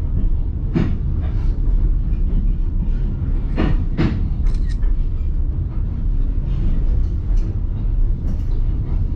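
White Pass & Yukon Route passenger train running along the track: a steady low rumble, with a sharp clack about a second in and two more close together around four seconds in.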